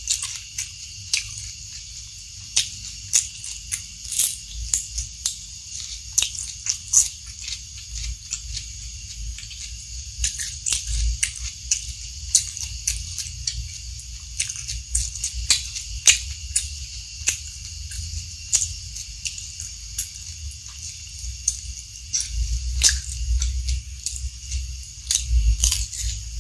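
Close-miked chewing and crunching of raw lettuce and other crisp raw vegetables, with many irregular wet clicks and crunches over a steady hiss.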